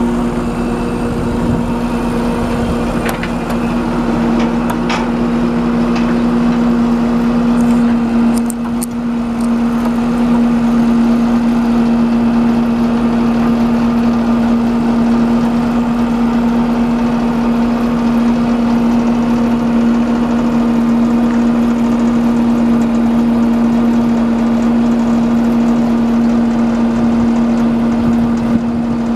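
The service truck's Caterpillar 3208 V8 diesel runs steadily while its truck-mounted air compressor is on and working, pumping up air pressure. It gives one steady hum, with a few light clicks in the first several seconds.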